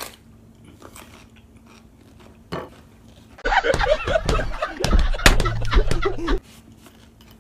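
Quiet crunching and chewing of raw jalapeño peppers. About three and a half seconds in, a loud burst of men laughing and hollering starts, lasts about three seconds and cuts off abruptly.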